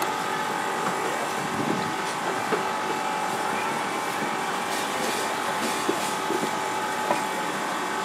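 Steady mechanical drone of an engine or motor, with several light knocks of a knife cutting through stingray wing onto a wooden chopping block.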